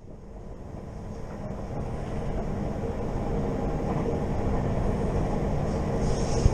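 Passenger train running along the track, with a steady low rumble and a faint steady hum that grow gradually louder over the first few seconds.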